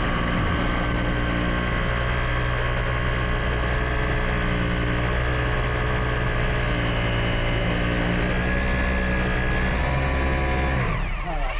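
Electric power drill running continuously under load, a steady motor drone that stops near the end.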